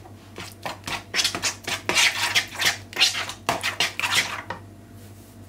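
Spoon stirring a wet spice and tomato-sauce mixture in a bowl, scraping and clinking against the bowl in quick, irregular strokes that stop near the end.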